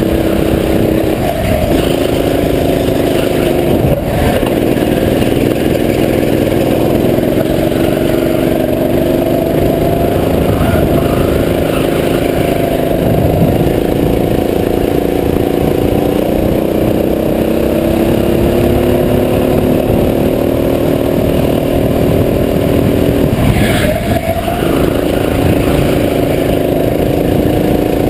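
Go-kart engine running hard, heard from onboard the kart: its pitch climbs steadily along the straights and drops briefly a few times as the throttle is lifted for corners, with a longer dip about 24 seconds in before it picks up again.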